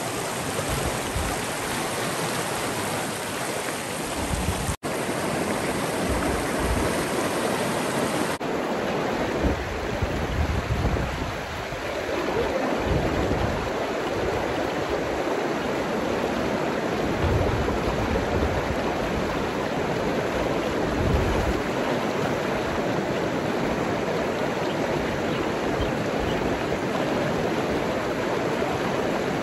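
River rapids rushing over boulders: a steady rush of flowing water, broken by a brief dropout about five seconds in.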